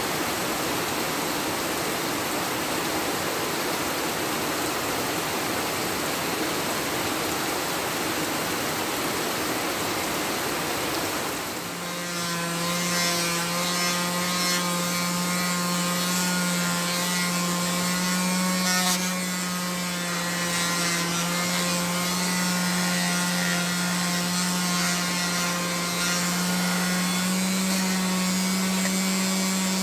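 Heavy rain falls steadily for about the first eleven seconds. Then an electric palm sander starts and runs with a steady hum, sanding a wooden knife handle.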